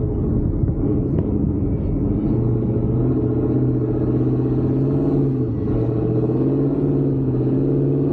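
Gen 1 Ford Raptor's V8 engine running under throttle on a dirt track, its pitch rising about two seconds in and then easing up and down with the throttle.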